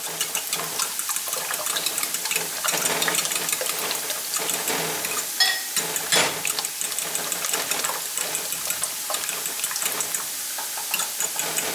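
Cubed potatoes and red onion frying in olive oil: a steady sizzle with frequent light clicks and scrapes throughout.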